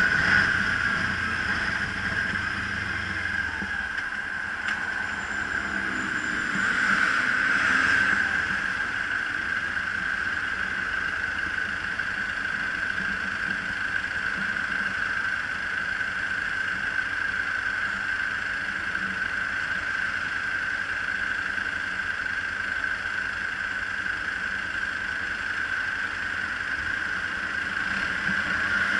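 Kawasaki Ninja 300 parallel-twin engine idling while the motorcycle sits stopped in traffic; a low rumble in the first few seconds fades as the bike settles at idle. A steady high-pitched whine runs throughout.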